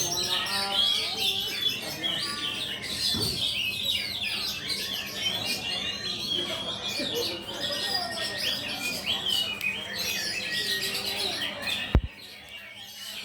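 Several caged oriental magpie-robins (kacer) singing over one another in a songbird contest: a dense tangle of rapid chirps, trills and whistles, with voices faint beneath. A sharp click near the end, after which the singing is much quieter.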